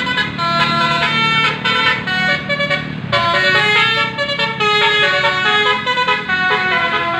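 An Indonesian bus's basuri telolet horn, a multi-tone musical air horn, playing a quick melody of notes that step up and down without a break.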